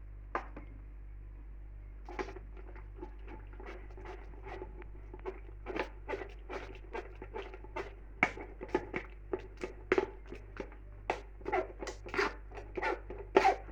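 Repeated short scrapes and taps of blended tomato pulp being worked through a sieve to strain out the skins. They begin about two seconds in and come faster toward the end.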